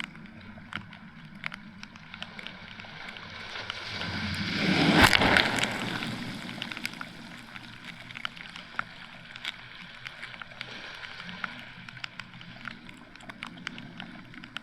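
A wave breaks and washes up the sand, swelling to a peak about five seconds in and then ebbing away. Under it runs a steady rain hiss with many sharp ticks of raindrops landing close by.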